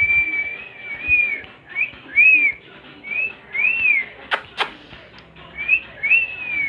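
A person whistling to call a dog: one long note, then a string of short notes that rise and fall. Two sharp finger snaps close together come about four and a half seconds in.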